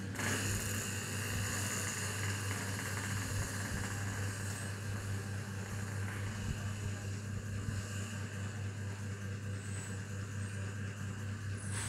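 Hands rubbing and pressing on a man's scalp and hair in a head massage, a soft rhythmic rustle under a steady low hum.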